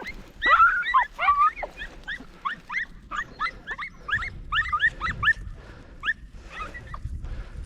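Podenco hunting dogs yelping in a rapid series of short, high-pitched cries, about three a second, as they give tongue chasing a rabbit; the cries thin out after about five seconds.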